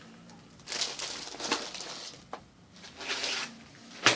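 Clear plastic product bags crinkling and rustling in bursts as they are handled, with a sharp tap near the end.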